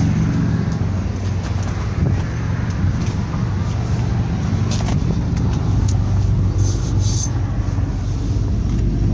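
A vehicle engine idling with a steady, even low hum, with a few short clicks about five and seven seconds in.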